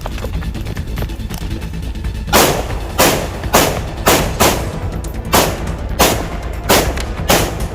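A quick run of sharp bangs, about nine in five seconds, starting about two seconds in, each with a short ringing tail, over a steady low background of music.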